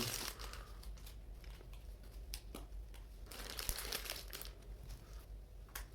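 Small plastic building bricks being handled and fitted together: scattered light clicks with patches of plastic rustling.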